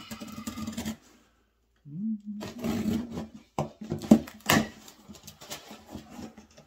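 Cardboard box being handled and its packing tape slit with a pocket knife: scraping, rustling and a few sharp knocks, over a low steady hum. The sound cuts out for about a second near the start.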